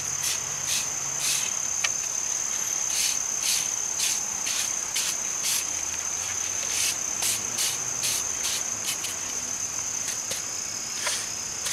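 Insects trilling on one steady high pitch, with short scratchy strokes repeating irregularly over it.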